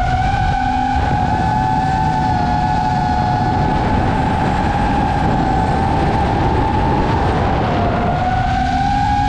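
FPV racing drone's brushless motors and propellers whining steadily, the pitch drifting with the throttle: it dips about seven seconds in and climbs again near the end. A low rushing noise runs underneath.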